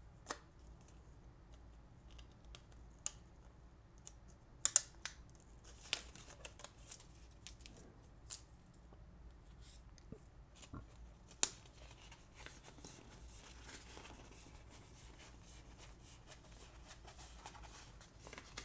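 A tightly rolled paper poster being handled and unrolled: scattered soft crinkles and taps of paper, with a few sharper crackles, the loudest about five seconds in.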